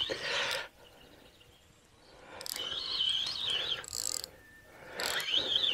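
Fishing reel buzzing in two spells, a high tone that wavers in pitch, while a hooked carp is played on the rod; the first spell comes about halfway in, the second near the end.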